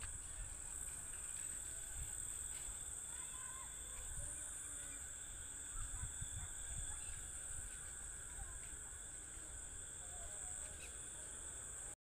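Steady high-pitched insect chirring with a few faint bird calls, over soft low thumps from a wooden pestle working yogurt in a stone mortar; the sound cuts off suddenly near the end.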